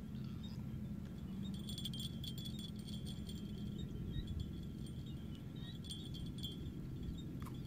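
Faint, light metallic jingling in two short spells, the first about a second and a half in and the second a little after six seconds, over a steady low background hum.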